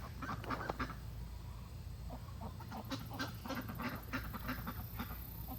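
Ducks quacking again and again in quick short calls. A faint, steady, high shrill sound joins in about halfway through.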